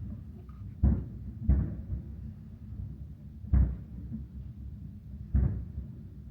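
Fireworks shells bursting, heard as deep, dull booms: four of them, about a second in, half a second later, then near the middle and again later, over a low rumble.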